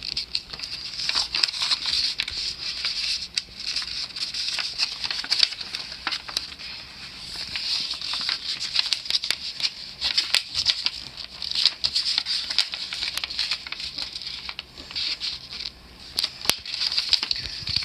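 A sheet of A4 paper rustling and crinkling as it is folded and creased by hand, with many small irregular crackles.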